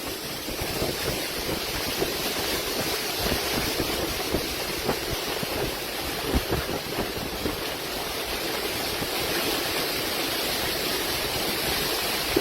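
Storm wind gusting hard with heavy rain, a steady rushing noise with gusts buffeting the microphone.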